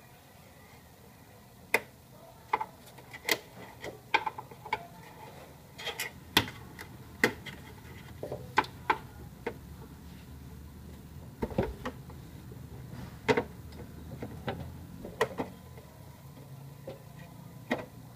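A long screwdriver working screws inside a laser printer's casing: irregular sharp metallic clicks and taps, about one or two a second, over a low steady hum.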